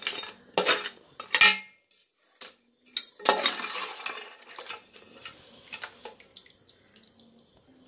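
Metal spoon clinking and scraping against the side of a metal pot while stirring thick crab curry: a few sharp knocks in the first three and a half seconds, then softer stirring that fades out near the end.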